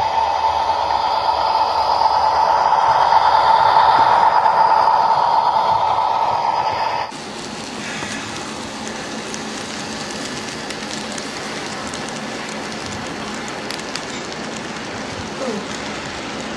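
A model train running on the layout's track: a steady whine of the small motor over the rolling rush of wheels on rail. It swells to its loudest a few seconds in and eases off. About seven seconds in it cuts abruptly to a quieter, even rolling hiss.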